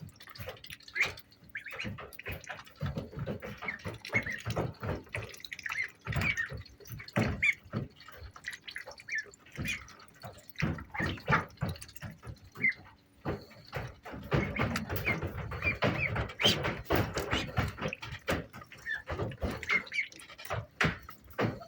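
Indian Runner ducklings peeping, with a constant patter of short taps and wet, dripping dabbling sounds throughout.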